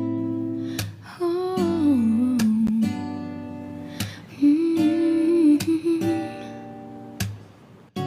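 Music: strummed acoustic guitar chords with a voice humming a wordless, gliding melody over them.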